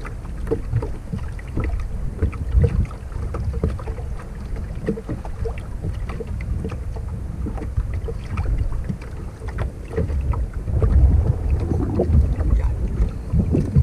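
Wind buffeting the microphone as a rumble that rises and falls and grows stronger near the end, with small knocks and slaps of water lapping against the boat's hull.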